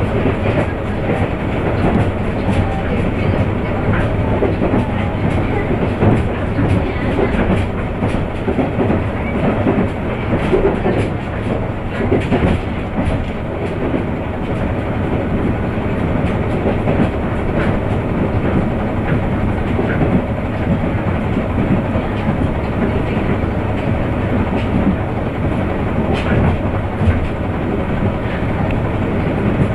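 Running sound of a JR East KiHa 100 series diesel railcar at speed, heard from inside the car: steady engine and wheel-on-rail noise with scattered clicks as the wheels pass over rail joints.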